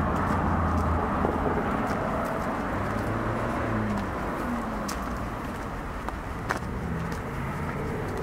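Road traffic: a car's engine and tyre noise steadily fading as it moves away. Faint footsteps tick on the pavement.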